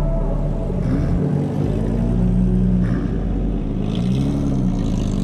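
Car engine running with a low exhaust drone, rising briefly in pitch about a second in and again about four seconds in, as if lightly revved.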